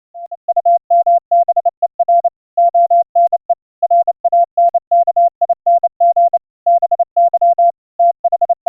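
Morse code from a CWCom news feed at about 30 words per minute: a single steady-pitched tone keyed on and off in rapid dots and dashes, with short gaps between letters and words.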